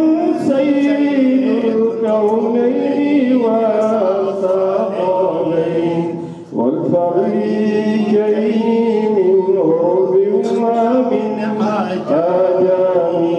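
A man chanting a devotional Islamic hymn unaccompanied through a microphone. He draws out long melodic notes, with short breath pauses about six and a half and twelve seconds in.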